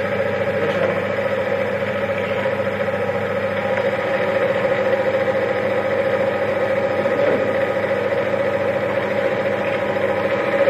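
Bench-top oil friction test machine running under load: its electric motor drives the test shaft against the weighted lever-arm contact, giving a loud, steady whine with one strong mid-pitched tone.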